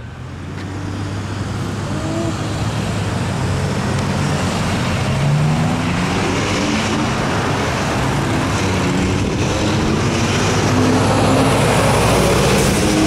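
Heavy road traffic with a diesel truck engine pulling away, its pitch climbing several times in steps as it runs up through the gears. The engine is the GMC Brigadier's Detroit Diesel 6V92TA two-stroke V6. Near the end a city bus passes close by.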